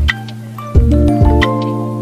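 Background music: a melody of ringing pitched notes over a bass line, with a steady beat.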